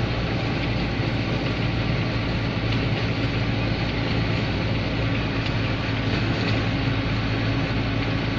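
Steady engine drone and road noise inside the cab of a GAZelle van cruising along a highway, a constant low hum of several tones under an even rush of tyre noise.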